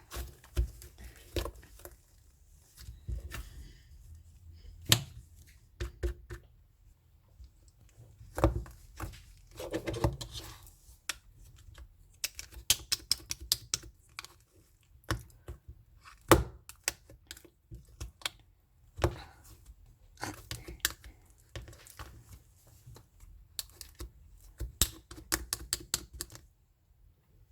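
Slime being squeezed and poked by hand, giving irregular sharp clicks and crackles, sometimes in quick runs, with short quiet gaps between.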